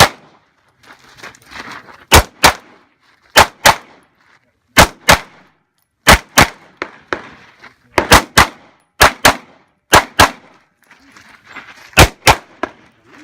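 Handgun fired in quick pairs, double taps a few tenths of a second apart, again and again, about eight pairs in all with gaps of a second or more between them.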